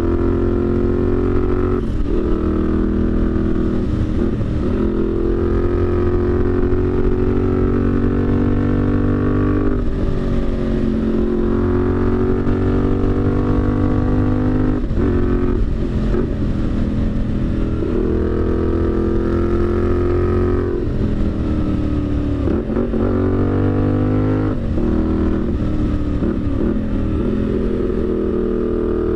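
Benelli 752S parallel-twin engine under way. The pitch climbs gradually, then drops sharply at each gear change, several times over.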